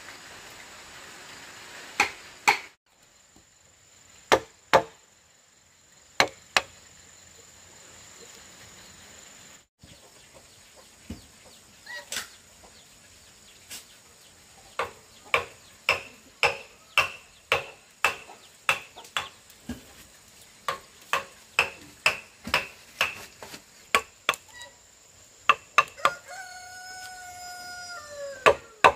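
A series of sharp knocks of a tool striking wood, sparse at first, then a steady run of about two strikes a second. Near the end a rooster crows once, with a long call falling in pitch. A steady high insect drone sounds underneath.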